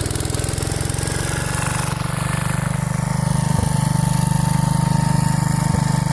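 Single-cylinder Kohler 241 engine on a 1968 Gravely Commercial 10A running steadily and fast under load, powering the Snow Cannon snowblower attachment, its firing pulses quick and even. A thin steady whine comes in about two seconds in.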